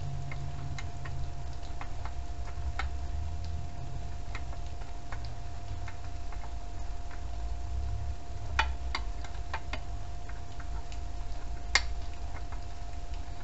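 Irregular light metallic clicks and ticks of hand tools working on bolts and fittings: a quick cluster about nine seconds in and one sharper click near the end. A steady faint whine and a low rumble run underneath.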